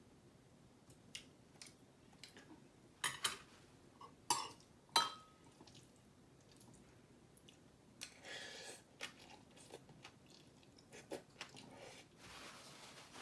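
A person chewing a mouthful of bibimbap, with small wet mouth sounds. About three to five seconds in come a few sharp clicks, the last with a brief ringing tone, and a short rustle follows a few seconds later.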